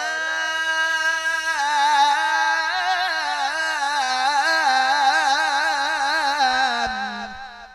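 A male qari's voice holding one long melismatic note in tilawah-style Qur'an recitation, drawing out the end of the word "al-Quddus": held steady for about a second and a half, then rippling up and down in ornaments. Near the end the pitch drops and the phrase fades out with a short echo.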